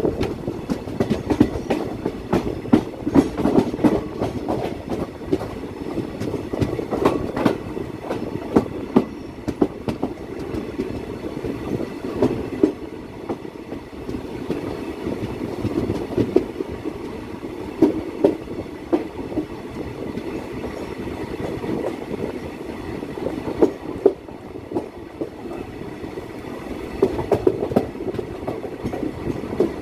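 Passenger train coach running on the rails, heard from its open doorway: a steady rumble of the wheels with irregular clickety-clack knocks as they pass over rail joints.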